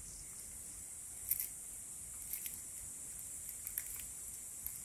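Faint handling of a cast net gathered in the hands: soft rustling and a few small, scattered clicks, over a steady high hiss.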